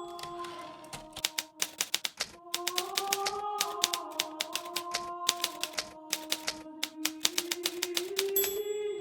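Hermes Baby portable typewriter being typed on at a quick, steady pace, with rapid clacking keystrokes. Its line-end bell rings once near the end. Soft background music with slowly shifting held tones plays underneath.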